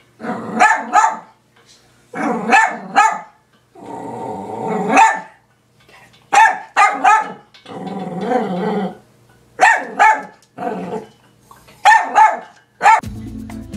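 Small dog barking in quick runs of three or four high yaps, again and again, with longer low growls in between.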